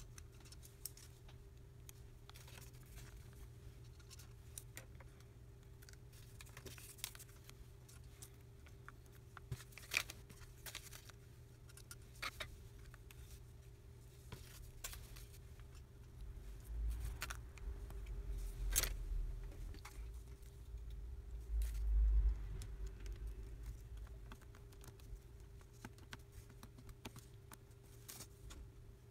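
Scattered small clicks and taps of a smartphone's parts and a hand tool being handled on a workbench, over a faint steady hum. In the second half a low rumbling handling noise swells twice.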